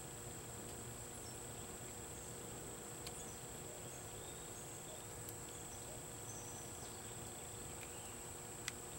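Faint, steady, high-pitched drone of insects, with a few light clicks from the plastic water pump parts being handled, the sharpest near the end.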